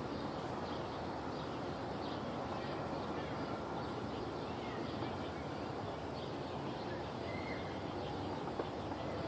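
Outdoor ambience: a steady background rush with a few faint bird chirps.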